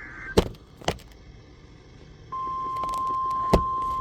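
NOAA Weather Radio weekly test signal: a short digital data burst ends, a few sharp clicks follow, and about two seconds in the steady 1050 Hz warning alarm tone begins and holds.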